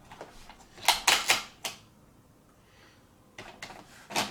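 Hard plastic toy pieces clicking and knocking together as they are handled, in two short clusters of sharp clicks.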